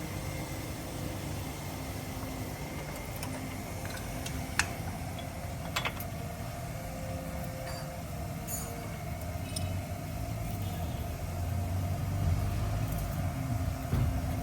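Toyota Corolla GLi engine running steadily, with a few short sharp clicks about four and a half and six seconds in.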